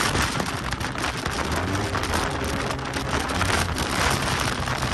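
Wind rushing over the microphone of a riding Yamaha TMAX maxi-scooter, with the scooter's engine running steadily underneath.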